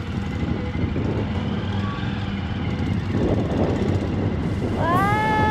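Royal Enfield motorcycle engine running steadily. Near the end comes a long high-pitched call that rises, holds and falls away.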